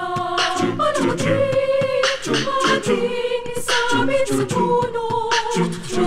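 A cappella group singing in harmony, several voices together, with beatboxed vocal percussion keeping the beat under held sung notes.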